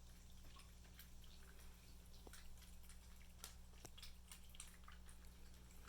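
Cats licking and lapping up puréed baby food: faint, irregular wet smacks and clicks over a low steady hum.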